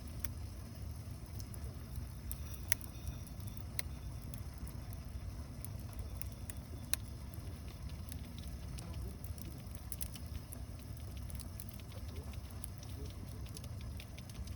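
Water boiling over a wood fire: a steady low bubbling rumble, with scattered sharp crackles from the burning wood.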